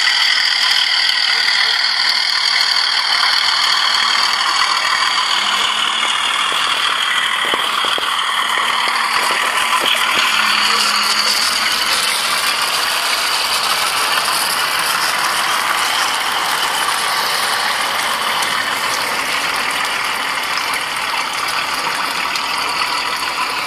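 Electric model train locomotives running on track: a steady whirring of motors and gears with wavering whine, and a few clicks of wheels over the rails.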